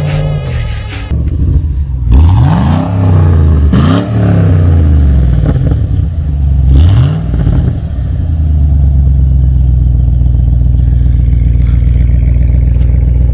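A 2007 Chevrolet Trailblazer SS's 6.0 L LS2 V8 heard at the exhaust tip. The engine is revved up and let fall back three times, then settles into a steady idle from about eight seconds in.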